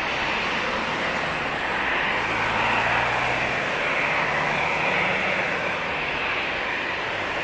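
Airbus A320-200's twin jet engines running at low taxi thrust as the airliner turns to line up on the runway: a steady rushing jet noise that swells a little in the middle.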